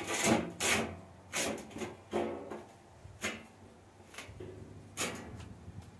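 Sheet-metal oven door scraping and knocking against the concrete-block opening as it is pushed shut and settled into place: loud scrapes in the first second, then separate clanks about a second apart, some with a short metallic ring.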